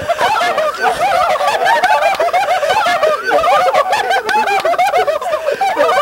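Continuous high-pitched chattering, voice-like squeaks whose pitch rises and falls several times a second.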